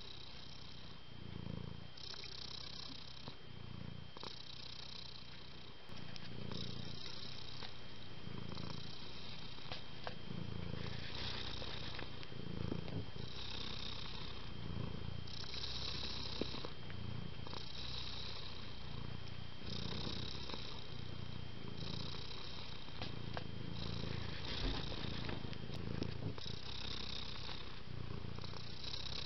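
A domestic cat purring steadily, the purr swelling and easing with each breath about every two seconds, louder from about six seconds in.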